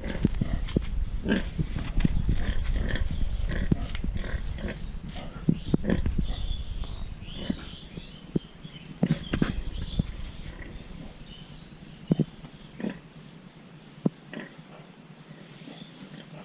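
Pigs grunting repeatedly, with a few short high-pitched calls about halfway through; the grunting grows quieter in the second half.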